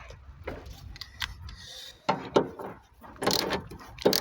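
A wrench working on a car door's hinge bolts: sharp metal clicks and clinks, with a quicker run of clicking a little past three seconds in.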